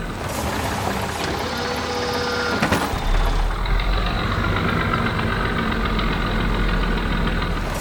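Cartoon sound effect of a vehicle engine running steadily, with a sharp click a little under three seconds in.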